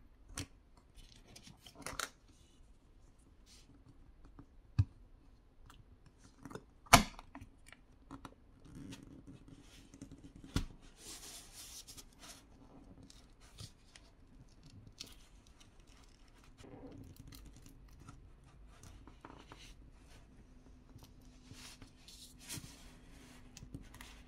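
Plastic pry pick worked into the seam of a phone's glass backplate, cutting through heat-softened adhesive with irregular scraping. A few sharp clicks and snaps come in the first eleven seconds, the loudest about seven seconds in, as the suction cup and pick are worked against the glass.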